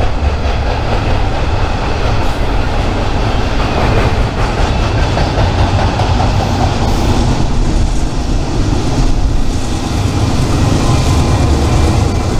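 A train passing close by: the steady, loud rolling noise of its wheels on the rails.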